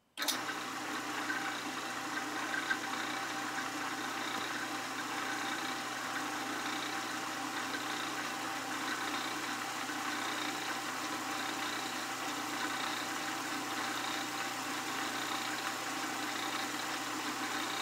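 Vintage Craftsman 150-series drill press running steadily with a handmade slow-speed pulley (multi-speed attachment) fitted: an even motor hum with the whir of the belts and aluminium step pulleys.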